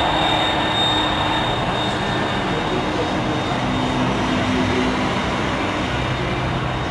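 Steady noise of road traffic mixed with the distant jet engines of an Airbus A310 on the runway, with a thin high whine above it that slowly fades.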